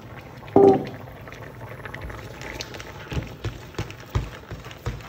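Marinera sauce with clams simmering and bubbling in a pan, with scattered taps and scrapes of a spatula against the pan. A short louder knock comes about half a second in.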